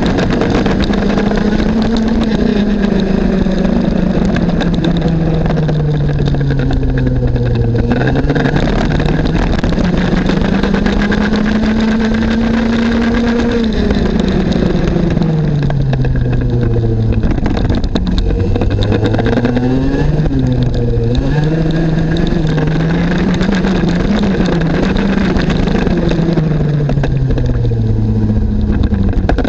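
Junior X30 kart's single-cylinder two-stroke engine at racing speed, heard from on board: the revs climb slowly, fall away, climb again to a peak, then rise and drop several times in quicker succession through the corners.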